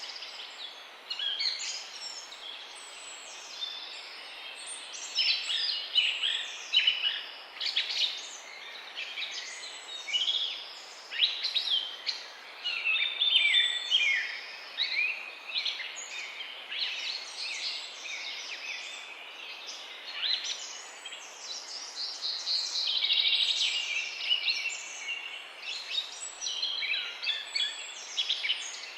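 Several songbirds singing at once, a dense chorus of overlapping chirps and trills over a steady background hiss.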